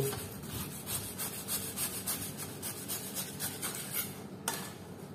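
Knife sawing through oven-browned stuffed bread, with quick, repeated back-and-forth strokes scraping through the crust.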